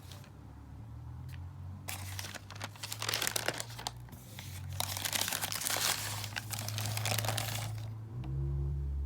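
Paper wrapping crinkling and rustling as it is handled, from about two seconds in until near the end.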